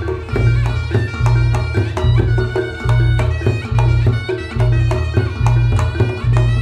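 Reog Ponorogo gamelan ensemble playing: a kendang barrel drum struck by hand in quick strokes, a slompret shawm carrying a reedy melody that slides between notes, deep gong beats recurring regularly, and rattling angklung behind.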